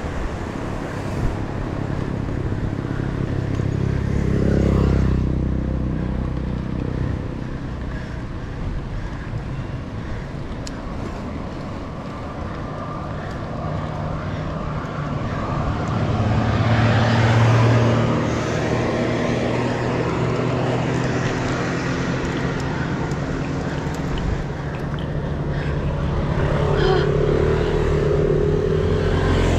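Motor vehicles passing on the road, the engine sound swelling and fading about four seconds in and again around seventeen seconds, over a steady rumble of road and wind noise.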